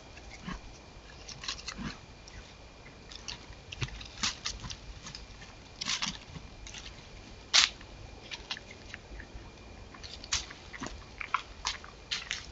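A young buck deer feeding and stepping about in dry leaf litter: irregular crunches, snaps and rustles, the loudest a sharp crunch a little past halfway.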